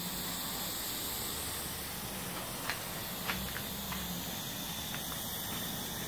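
Steady hiss of steam escaping from a small wood-fired fire-tube steam boiler under pressure, with a few faint ticks about three seconds in.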